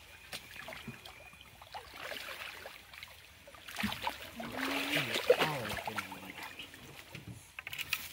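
Hooked catfish thrashing at the surface on a limb line, splashing and sloshing the water, the splashing heaviest in the middle of the stretch.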